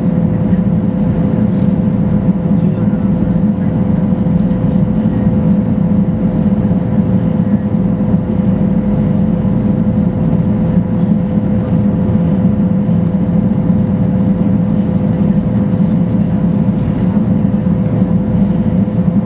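Boeing Jetfoil 929's gas turbines and waterjet propulsion running steadily at speed: a constant loud drone with a steady whine over it.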